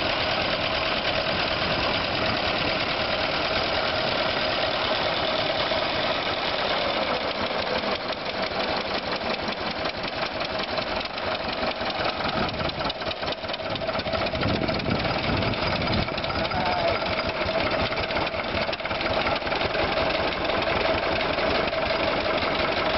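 Ford Model T four-cylinder flathead engine running steadily with a fast, even pulse of firing strokes, running rough as its owner puts it; it drops a little in level for a few seconds past the middle, then picks up again.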